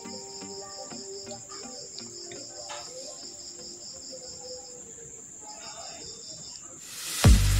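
Crickets chirping steadily in even high pulses, with a few faint snips of scissors cutting cotton fabric. Loud background music with a heavy beat cuts in just before the end.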